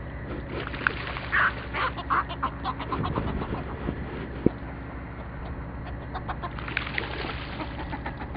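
Seabirds calling in short, repeated sharp notes, in a burst about a second in and again near the end, over a steady low hum.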